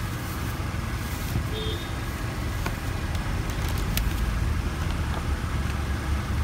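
Steady low rumble of passing road traffic, with a few faint clicks over it.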